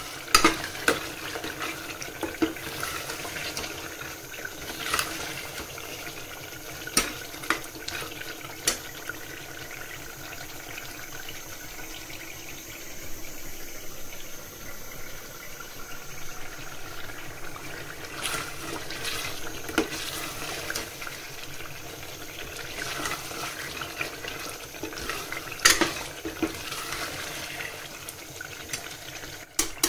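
Kitchen tap water running steadily into a sink, with occasional sharp knocks and clatters.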